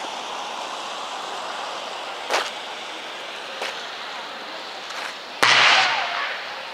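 Electrical pops from a power substation after a transformer failure: a short crack about two seconds in, a smaller click, then a loud crack about five seconds in followed by about a second of fading hiss, typical of arcing. A steady background hiss runs under it.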